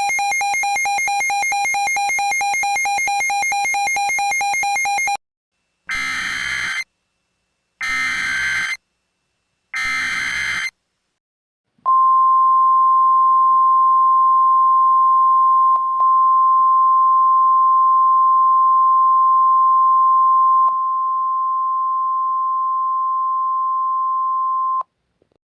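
Simulated Emergency Alert System / NOAA Weather Radio alert tones. A buzzy, rapidly pulsing tone for about five seconds, then three one-second bursts of the screeching digital SAME header data a second apart, then the steady 1050 Hz NOAA Weather Radio warning alarm tone held for about 13 seconds, stepping slightly quieter near the end.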